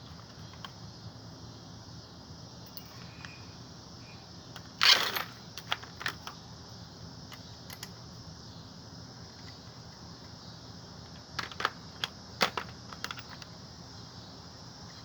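Hand tools clinking on the metal parts of an ice maker being taken apart. There is one loud metallic clank about five seconds in, then scattered light clicks and clinks, bunched together later on, over a steady low hum.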